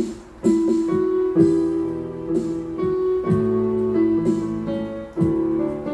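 Yamaha portable keyboard played with a piano sound: held chords that change every second or two, the introduction before the singing begins.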